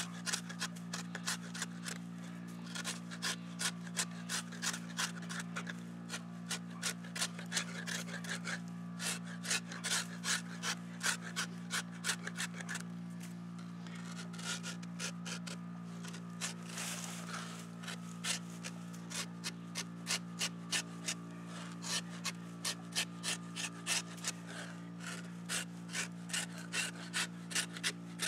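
Old Hickory carbon-steel butcher knife shaving and scraping into a green aspen log in short, rasping strokes, about two to three a second, thinning out briefly about halfway through. A steady low hum runs underneath.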